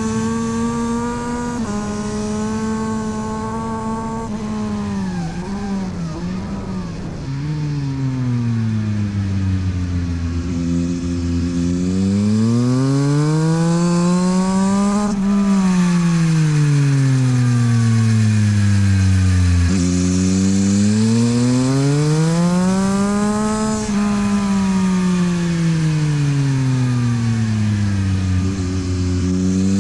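Yamaha MT-09 SP's 890 cc inline-triple engine through a LeoVince exhaust, ridden hard on track. It holds high revs briefly, drops with a few quick dips around the braking, then rises and falls again and again, climbing for about four seconds as it accelerates out of each corner and falling as it slows for the next.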